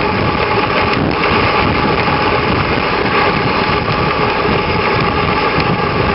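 Steady rushing noise of a dog sled running over packed snow behind a team of Alaskan Malamutes: the runners sliding on the snow, with wind buffeting the microphone at the low end.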